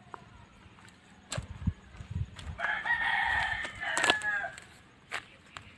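A rooster crowing once, a call of about two seconds that drops in pitch at its end. A few low thumps come just before it.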